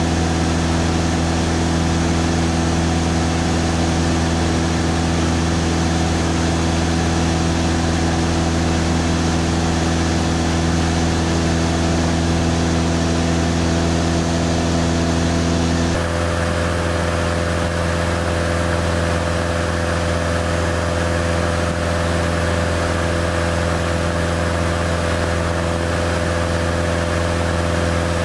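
Cessna 172 floatplane's piston engine and propeller droning steadily in cruise, heard inside the cabin. The tone of the drone shifts slightly about halfway through.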